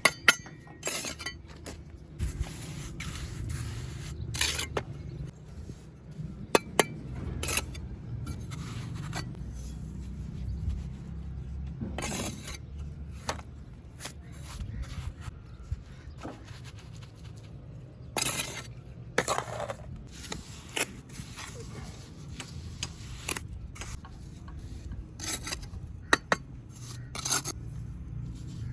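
Bricklaying sounds: a mason's steel trowel scraping mortar and knocking on bricks. Irregular sharp metallic clinks and taps, with a few longer scrapes.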